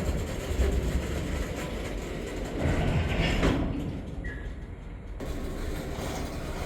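Freight train of empty hopper cars rolling slowly past with a steady low rumble, a couple of louder knocks from the cars, and a brief high squeal a little after four seconds in.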